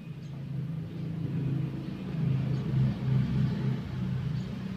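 A low engine rumble, swelling and fading, loudest about two to three seconds in.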